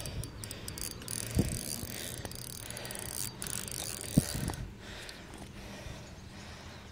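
Fishing reel being cranked to wind in line on a hooked bluegill: a steady ratcheting whir, with two short knocks about one and a half and four seconds in.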